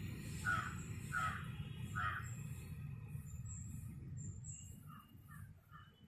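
A crow cawing three times in quick succession, then three fainter caws near the end, over a steady low rumble, with a few faint high chirps in between.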